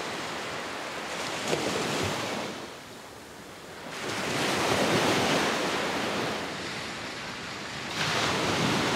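Small waves breaking and washing up on a sandy beach, the surf rising and falling a few times.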